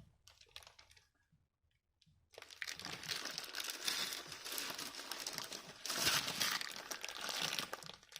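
Plastic packaging crinkling and rustling as an amplifier is handled and unwrapped, starting a little over two seconds in after a brief quiet and growing louder around six seconds in.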